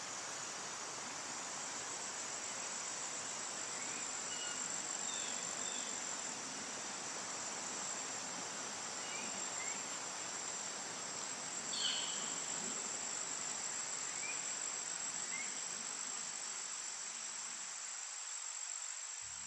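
Insects droning steadily at a high pitch, with a few short chirps scattered through and a louder chirp about twelve seconds in.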